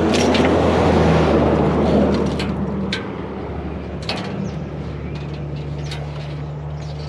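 Truck driving off: a steady engine hum under road and wind noise that swells over the first couple of seconds, then eases. A few light clicks and knocks sound through it.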